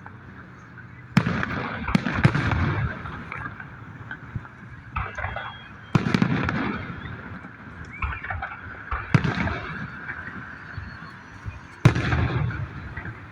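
Aerial fireworks bursting: several sharp booms a few seconds apart, each trailing off in a rumble over about a second.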